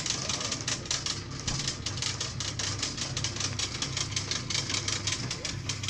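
Rapid, irregular clicking and rattling from the metal frame and rails of an open cable lift as it descends, over a steady low hum.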